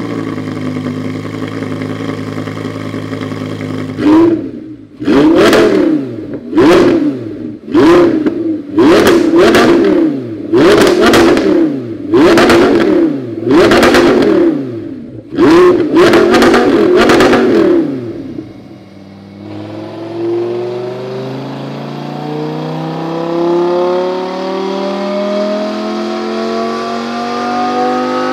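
Audi R8's 5.2-litre V10 through a Fi Exhaust valvetronic catback, just started and idling, then blipped about ten times in quick sharp revs, each rising and falling away. It drops back, then about two-thirds of the way in begins a steady wide-open-throttle pull on the chassis dyno, engine pitch climbing evenly.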